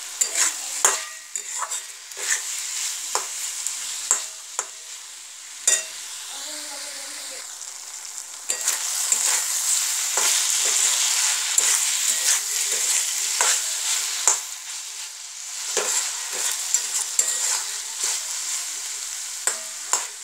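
Capsicum, onion and tomato sizzling in oil in a kadai while a metal spatula stirs them, scraping and clacking against the pan. The sizzle grows louder about eight seconds in and eases again a few seconds later.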